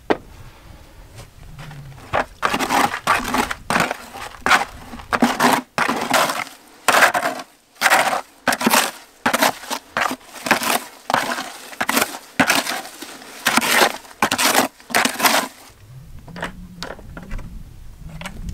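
A hand tool scraping and scooping gritty wet sediment in a plastic bucket: a quick, irregular run of short rasping strokes from about two seconds in, stopping near fifteen seconds. A single sharp knock comes at the very start.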